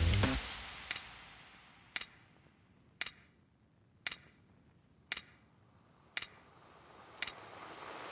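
Background music fades out, leaving a sharp tick about once a second, seven in all, like a clock; the music swells back in near the end.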